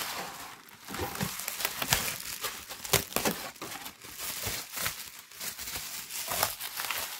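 Bubble wrap and gift-wrapping paper crinkling and rustling as they are handled and pulled aside, in irregular crackles with a few louder ones about two and three seconds in.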